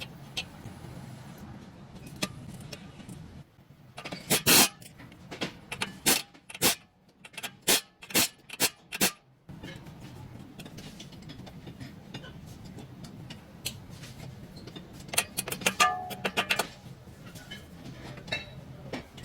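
Hand tools working on metal suspension parts: sharp clanks and clicks in two bursts, the second with a brief metallic ring, over a steady low hum.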